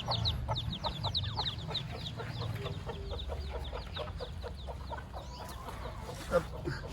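Chicks peeping in a quick, continuous run of short, high, falling cheeps, with hens clucking. A single sharp knock comes near the end.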